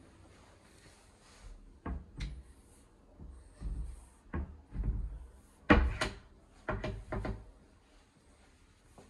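A series of about ten irregular knocks and bumps, the loudest a little past the middle.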